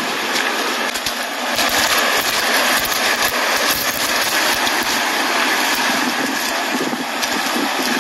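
Steady rush of water flowing through a concrete floodgate channel, an even hiss-like noise with irregular low rumbles from about a second and a half in.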